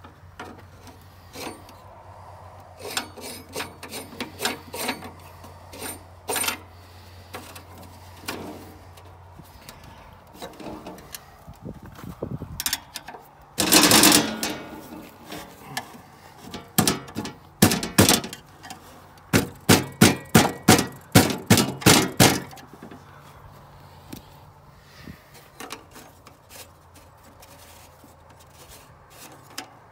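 Hands and a screwdriver working on a metal meter base enclosure and the locknut of its conduit hub. Scattered clicks and knocks, a loud rattling clatter about halfway through, and a few seconds later a quick run of about ten sharp taps, three or four a second.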